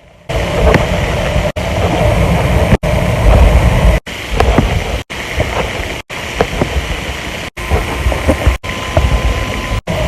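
A run of short, spliced close-miked recordings of silent hiccups. Each clip is a burst of noise with a heavy low rumble and a faint click or catch, and about nine clips follow one another with abrupt cuts between them.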